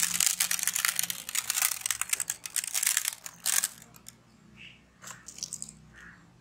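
Candy sprinkles showered onto a metal tray of chocolate-glazed donuts: a dense rattle of tiny ticks that thins to a few scattered ticks after about three and a half seconds.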